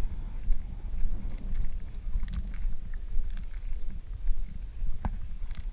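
Wind buffeting the microphone: a low rumble that rises and falls in gusts.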